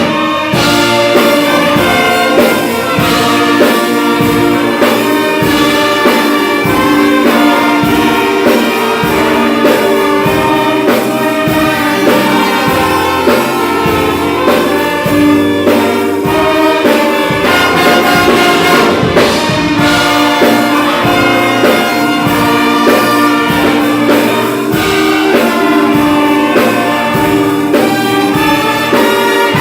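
Brass-led orchestra playing, trumpets and trombones carrying the music over percussion strokes.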